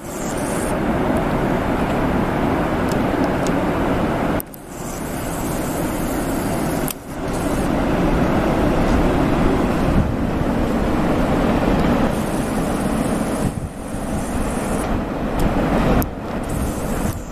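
Steady rushing outdoor noise, broken by a few sudden short drops where the recording cuts.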